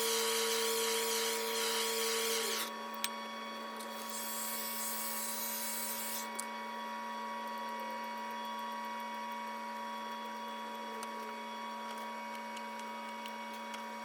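A steady electrical hum and whir, with a loud hissing rush for the first few seconds that stops, then returns from about four to six seconds in.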